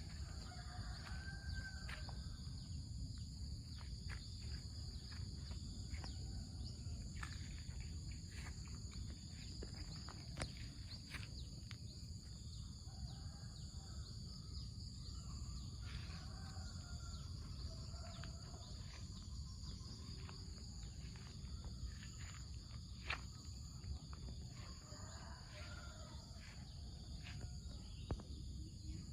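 Rural garden ambience: insects droning steadily at a high pitch, with faint bird calls a few times. Scattered clicks and a low rumble run underneath.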